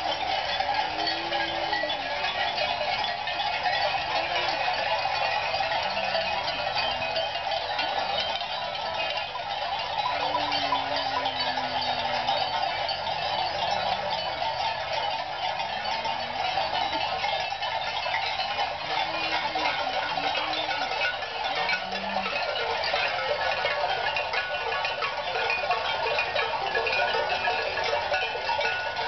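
Many cowbells on a passing herd of cattle clanking and jangling without a break as the cattle walk, with a few short low moos now and then.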